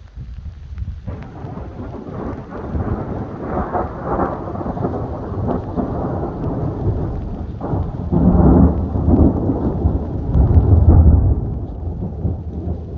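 A long roll of thunder: a deep rumble that starts about a second in, builds, is loudest in two heavy peaks near the end, then dies down.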